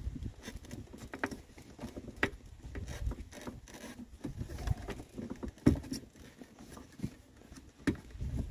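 Wiring harness and plastic connectors being pushed in behind plastic dash trim by hand: irregular light clicks and taps, with rustling of wires against the plastic.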